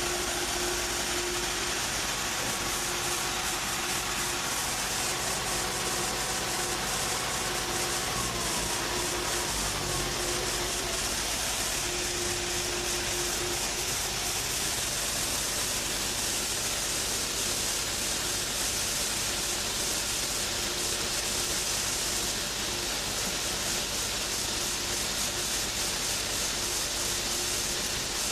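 Combine harvester running steadily under load, a dense mechanical rush with an engine hum beneath; the engine note drops about a third of the way in.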